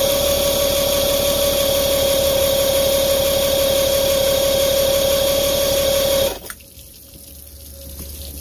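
Electric starter cranking a 1966–67 Mercury 950SS inline-six outboard for about six seconds, a steady whine that spins up at the start, then cuts off suddenly without the engine catching. The owner finds no fuel reaching the carburettor venturis. Afterwards, water from a hose splashes on the lower unit.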